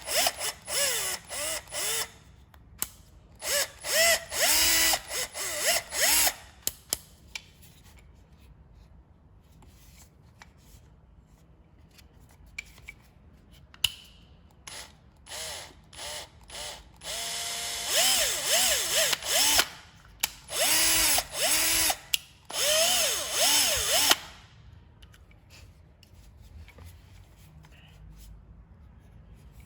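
Bosch GSB 120-LI cordless drill motor run in short trigger bursts, its speed rising and falling with each squeeze, with small clicks between the bursts.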